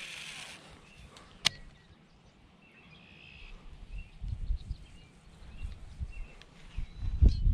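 Wind buffeting the microphone in gusts, loudest near the end, with faint bird chirps. Right at the start a brief hiss as a baitcasting rod is cast, and a sharp click about a second and a half in.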